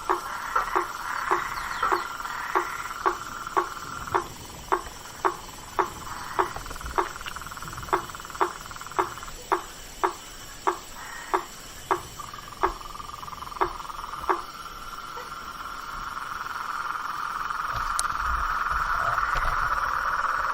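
Blacksmith treefrog (sapo-martelo) calling: a sharp knocking 'tonk' repeated about twice a second, which stops about two-thirds of the way through. Under it runs a steady high-pitched marsh chorus that swells near the end.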